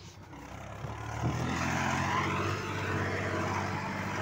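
Tractor's diesel engine running under load, pulling a trailer heaped with sand through loose sand. It grows louder about a second and a half in, then holds a steady note.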